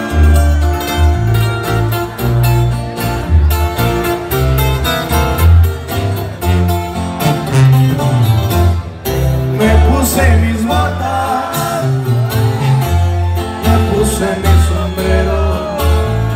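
Live regional Mexican band: a tuba plays pulsing bass notes under strummed and plucked acoustic guitars, including a 12-string, with lead guitar runs on top.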